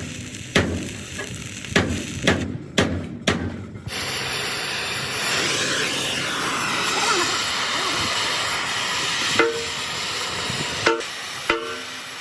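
Hammer blows on steel, some ringing with a clear tone, broken by about five seconds of steady hissing from the metalwork in the middle.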